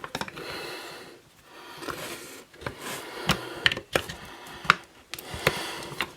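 Drum-brake shoes and return springs being worked by hand onto the backing plate of a vintage BMW R 51/2: irregular small metal clicks and taps over rubbing and scraping.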